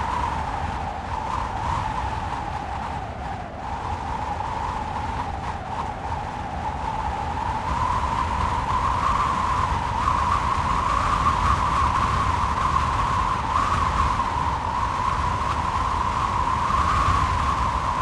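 Wind blowing with a low rumble and a wavering, whistling tone; it eases slightly a few seconds in and builds again from about eight seconds.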